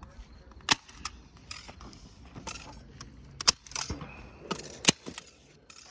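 Hand staple gun fastening a paper target to a wooden frame: about half a dozen sharp clicks at uneven intervals, the loudest about a second in and near the end, with handling rattle between.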